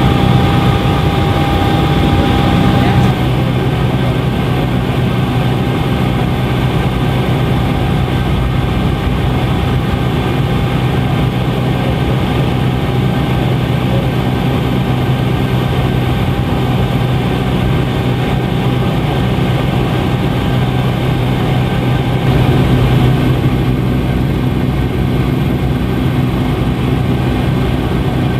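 Helicopter engine and rotor drone heard from inside the cabin: a loud, steady low hum. A thin high tone in it stops about three seconds in.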